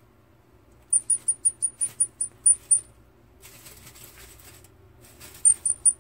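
Baby long-eared hedgehog calling for its mother after being separated from her: a rapid run of very high-pitched peeps, about five a second. There is a run of about ten peeps, then a rustle of wood-shaving bedding, then a new run of peeps starting near the end.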